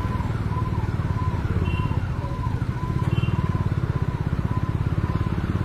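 Motorcycle engine running at low speed in slow traffic, heard close up with a fast, even pulsing. A faint high beep repeats about twice a second behind it.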